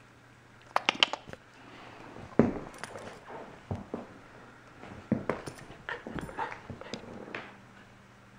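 Corgi puppy making short whimpers and yips as it moves about. A cluster of sharp clicks comes about a second in, and a thump a little after two seconds.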